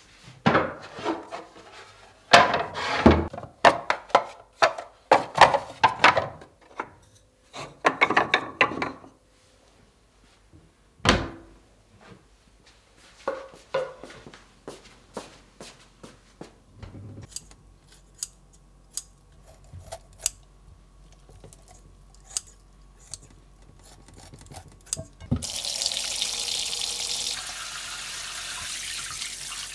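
A run of loud knocks and clatters, one more thunk, then scattered faint clicks. About 25 seconds in, a kitchen tap turns on and runs steadily into a stainless steel sink, splashing over raw chicken pieces being rinsed in a glass bowl.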